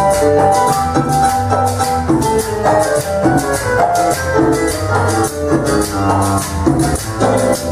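Dance music played by a live band: a keyboard melody over a pulsing bass line, with drums and steady high percussion keeping the rhythm.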